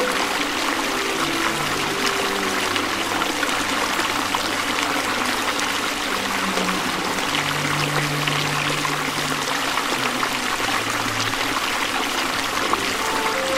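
Shallow stream rushing steadily over rocks, with slow, low background music notes sounding underneath.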